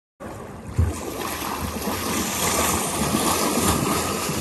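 Water splashing and rushing along a kayak's hull as it is pushed off from the shore into the river, starting suddenly, with a low thump about a second in.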